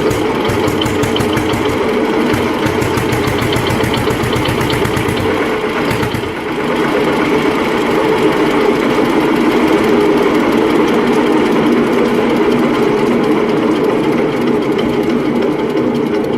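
Deutz F1M 414 tractor's single-cylinder diesel engine running with a fast, even chugging beat. The sound dips briefly and changes character about six seconds in, then carries on slightly louder.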